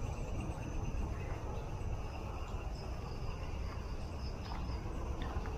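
Crickets chirring steadily at night, with a couple of faint ticks about five seconds in.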